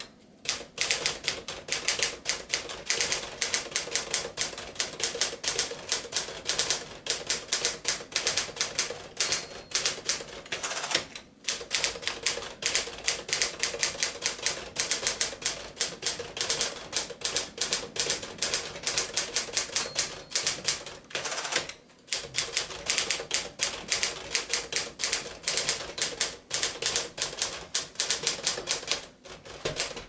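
1951 Smith-Corona Clipper manual portable typewriter being typed on at a steady pace: a quick run of sharp keystroke clacks, broken by brief pauses about a third of the way in and again around two-thirds through.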